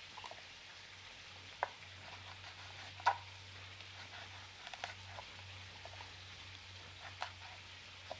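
A few sharp knife taps on a cutting board as dried chiles are cut into pieces, the loudest about three seconds in, over a faint steady sizzle of chicken browning on the stove.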